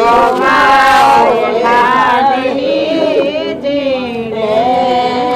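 A woman singing a devotional bhajan, holding long notes with a wavering, ornamented pitch.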